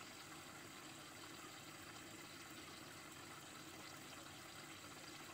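Faint, steady hiss of moving water in an aquarium, with no splashes or knocks.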